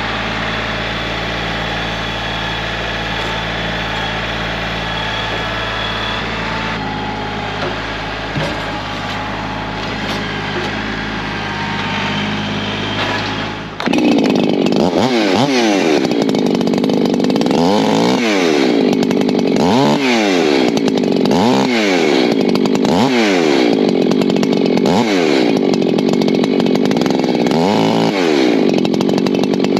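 Echo two-stroke chainsaw running at a steady pitch. About halfway through, the sound changes abruptly and gets louder, with the engine pitch rising and falling over and over, roughly every second and a half to two seconds, as the saw works through oak rounds.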